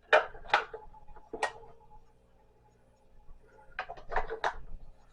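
Sharp plastic clicks from handling a small battery-powered clock while fitting batteries: three clicks in the first second and a half, then a quick run of about four near the end.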